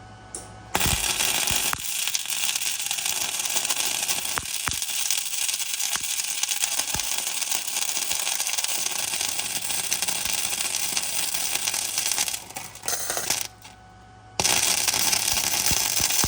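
Wire-feed (MIG) welding arc laying beads on thin golf cart frame steel: a steady crackling hiss with occasional pops. It starts just under a second in, sputters and stops about thirteen seconds in, and strikes up again a second later.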